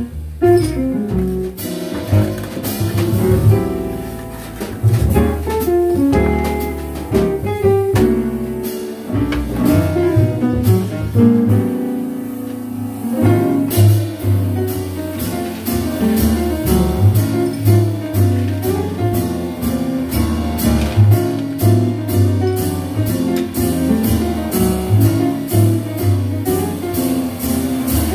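Live jazz quartet playing: piano, hollow-body electric guitar, upright double bass and drum kit. From about halfway in a steady run of cymbal strokes keeps time.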